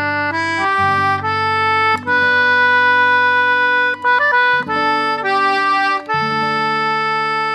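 Instrumental background music: held chords over sustained bass notes, changing every second or so, beginning to fade near the end.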